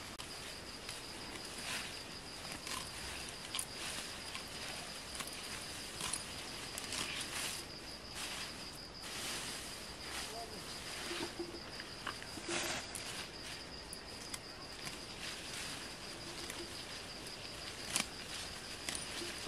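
An insect's steady high-pitched trill, with scattered rustling and sharp snaps of leafy plants being picked by hand.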